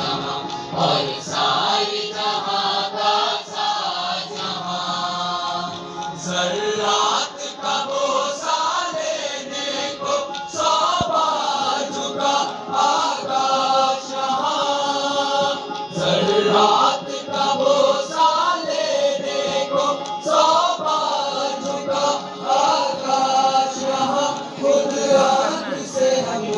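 A chorus of voices singing a melody with long held notes, which bend from pitch to pitch.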